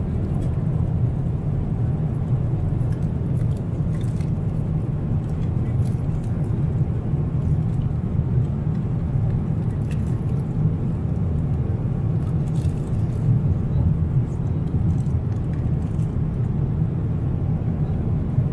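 Steady low cabin drone of a Boeing 777-300ER in flight, engines and airflow. A few faint clicks and rustles from the snack packaging being handled on the tray table.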